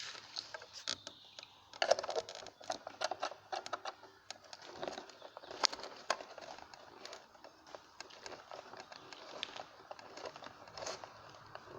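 Hands handling a control panel and its switches: a run of irregular light clicks and knocks, thickest about two to three and a half seconds in, over a faint steady mains-like hum.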